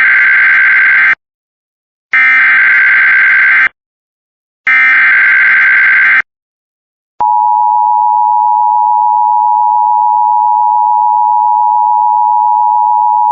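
Emergency Alert System SAME header: three bursts of digital data screech, each about a second and a half long. About seven seconds in, a steady, single-pitched attention tone starts and holds. Together they signal the start of a National Weather Service severe thunderstorm warning.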